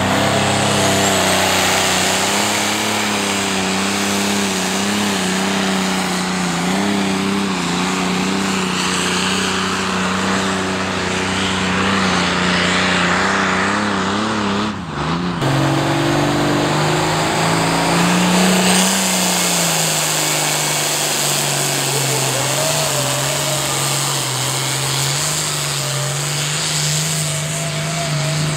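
Modified diesel pulling-tractor engine running hard at high revs under load as it drags a weight sled. The engine note wavers throughout. About halfway through there is a brief break, then an engine again whose pitch swells and settles.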